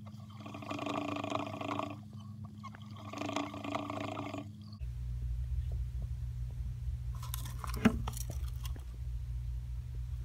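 Dwarf hamster running on a plastic saucer wheel: the wheel whirs and rattles in two spurts of about two seconds each. About halfway through the sound changes abruptly to a steady low hum, with brief scraping and one sharp click a little later.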